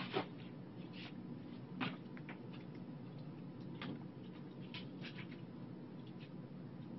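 Faint, scattered clicks of a computer mouse and keyboard, one or a few every second or so, over a steady low hum of room tone.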